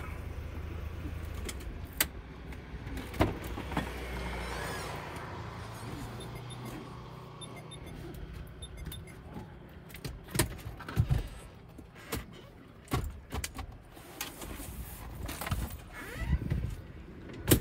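Knocks, clicks and rustles of people moving about a car's open doors and leather seats, thickest in the last several seconds, over a steady low rumble in the first few seconds.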